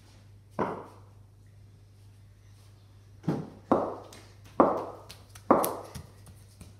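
Five sharp hard knocks from cricket play, one about half a second in and four more spread through the second half, each ringing briefly in the bare garage's echo, over a faint steady low hum.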